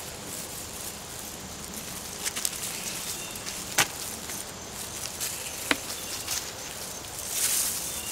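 Hands working through potting soil and potatoes in a garden container: soft rustling with a few sharp clicks and knocks, the clearest about two, four and six seconds in, over a steady outdoor hiss.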